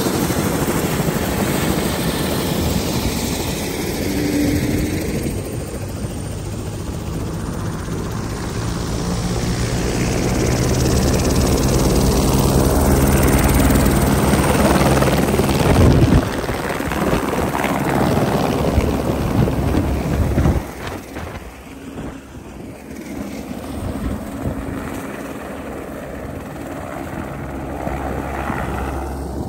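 Airbus AS350 single-engine helicopter running with its rotor turning, a steady low beat under the turbine, loudest around the middle. It drops suddenly about two-thirds through and carries on lower as the helicopter flies off.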